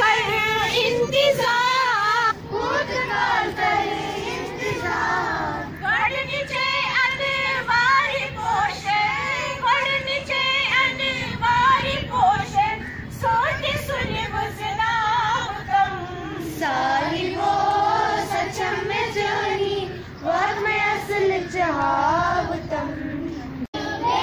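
A group of schoolchildren singing together, with women's voices among them, in a continuous sung melody.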